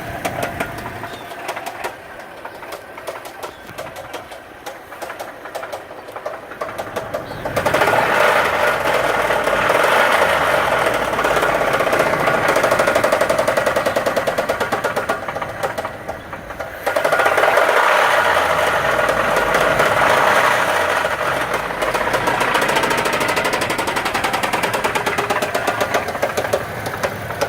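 The 2007 Dodge Dakota's 3.7-litre V6 running with a heavy, rapid rod knock, the sign of a failed connecting rod that the owner says has been slung. The knocking grows louder twice, about 7 seconds in and again about 17 seconds in.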